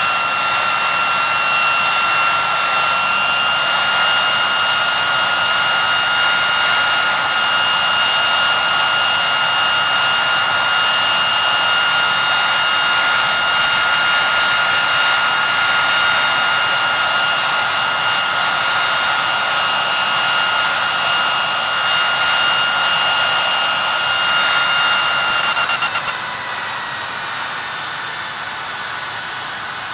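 Rolls-Royce Spey turbofan engines of a Hawker Siddeley Nimrod running at high power on the ground: a loud, steady jet rush with a high whine. About 26 seconds in, the whine slides down in pitch and the sound drops in level.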